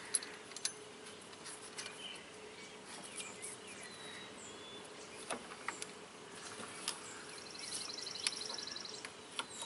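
Faint metallic clicks and taps as a pulley is handled and fitted onto a power steering pump shaft. Over them are outdoor sounds: a few bird chirps, and about eight seconds in a short, rapid insect trill.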